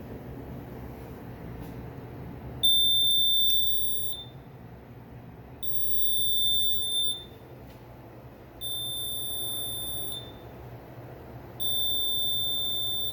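High-pitched piezo alarm beeper sounding four long, steady beeps about three seconds apart, the first the loudest, over a low background hum.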